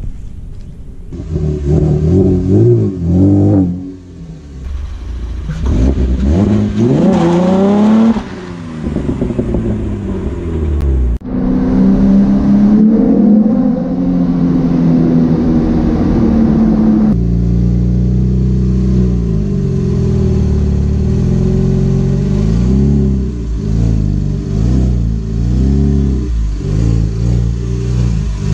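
Chevrolet Camaro's 3.6-litre LFX V6 running and revving up and down, then settling into steadier running with smaller rises and falls.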